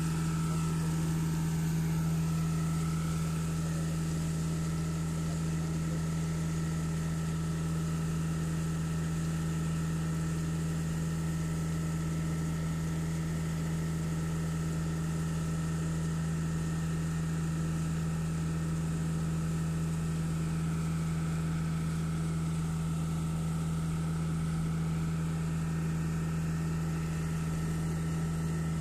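Truck-mounted Putzmeister concrete boom pump running with its diesel engine at a steady pace, giving a low, even hum with a faint high whine above it.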